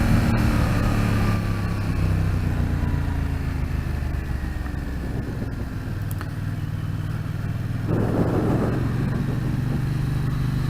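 Yamaha FZ-07 parallel-twin motorcycle engine running under way. Its pitch falls over the first few seconds as it slows, then holds steady. A rush of noise comes in about eight seconds in.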